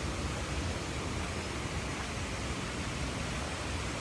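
Rushing river water: a steady, even roar of flowing water.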